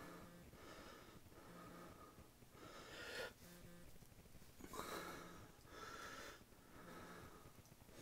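Faint, wheezy breathing, in and out about once a second.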